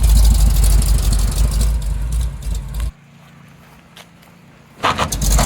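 1975 Chevy C10 pickup driving, with engine and road noise under a heavy low rumble. The sound drops away suddenly about three seconds in, leaving a faint hum, and comes back loud near the end.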